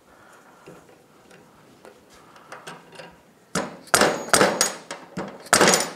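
Faint metal tool clicks, then about six quick strikes of a soft-face mallet on a second hammer held against a valve spring retainer. The strikes seat the valve keepers around the collar of a Honda Rancher 350 cylinder head.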